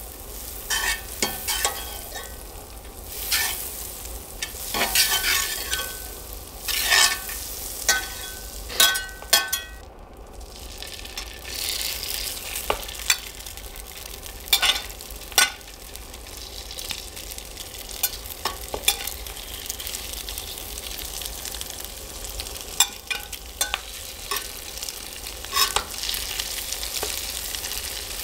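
Pike fillets sizzling in butter in a cast iron pan, with a steady frying hiss and frequent sharp scrapes and taps of a metal utensil against the pan as the fish is moved around. The sound drops out briefly about ten seconds in.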